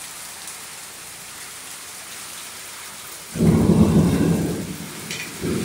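Heavy rain falling steadily on pavement. About three seconds in, a loud clap of thunder rumbles for about a second and a half, with a short second burst near the end.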